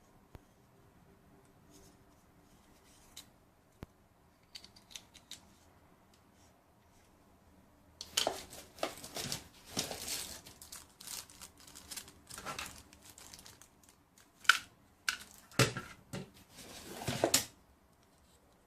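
Packaging being handled: a few faint clicks, then from about eight seconds in some nine seconds of irregular rustling and crinkling, with several sharp snaps near the end.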